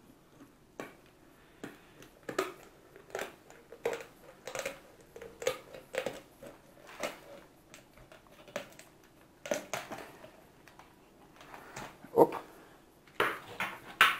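Kitchen shears snipping through a carp's rib bones: a steady series of short, sharp crunching snips, about one every second or less, the last few louder.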